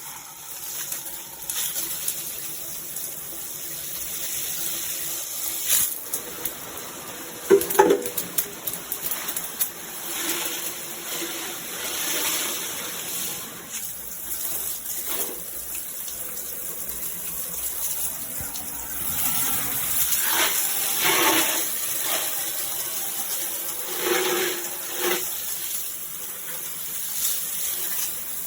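Shower head spraying water: a steady rushing hiss with a few brief louder spikes, the strongest about eight seconds in.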